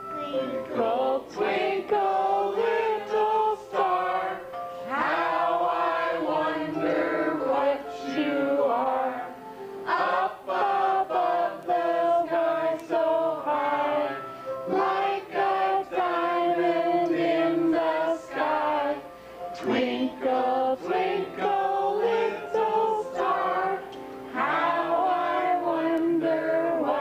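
A group of people singing together, several voices on held, gliding notes, in phrases of a few seconds with short breaks between them.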